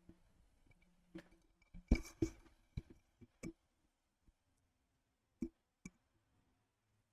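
Scattered light clicks and taps, several close together about two seconds in and two more single ones near the end, over a faint low hum.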